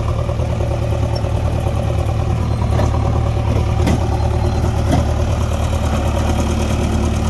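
Diesel engines running steadily at low revs: a JCB backhoe loader manoeuvring close by while a tractor idles. About six seconds in, a new steady engine note comes in.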